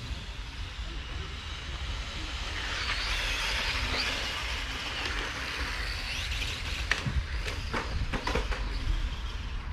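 Electric Tamiya M-chassis RC cars racing past on asphalt: motor whine and tyre hiss that rise and fall away, loudest a few seconds in. A few sharp clicks follow near the end.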